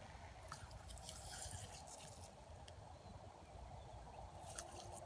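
Faint hiss of water spray from a lawn sprinkler, coming and going in short stretches, over a steady low rumble.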